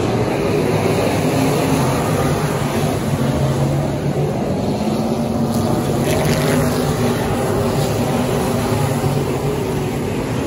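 Several dirt-track limited modified race cars' V8 engines running steadily with no big revs, the cars circling at low speed under a caution.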